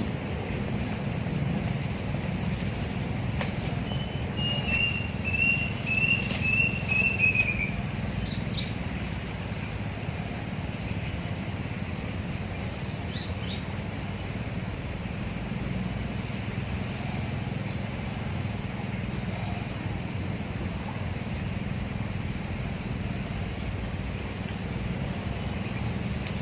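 A bird calling a run of about eight short, quick notes that fall slightly in pitch, a few seconds in, over a steady low outdoor rumble, with a few faint clicks.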